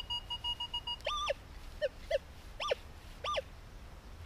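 Metal detector signalling a strong target: a fast, steady beeping for about the first second, then about five short electronic tones that rise and fall in pitch as the coil is swept back and forth over the spot.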